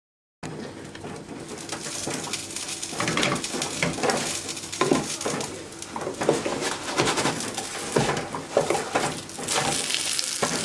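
Eggs boiling hard in a small saucepan, with irregular bubbling and gurgling pops and the eggs knocking against the pot. Over this is the hiss of a gözleme frying in butter in the pan.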